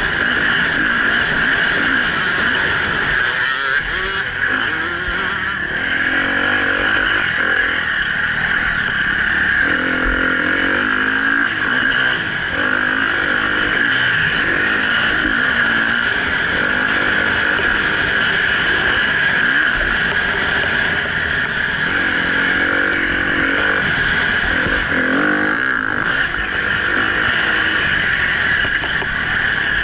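Enduro dirt bike's engine heard close up from the rider, revs rising and falling repeatedly as it is ridden along a dirt track, over a steady high-pitched hiss.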